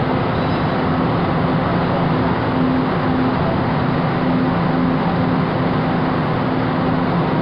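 Steady running noise of an MBTA Green Line light-rail train, an even rumble and hiss with a low hum that breaks on and off.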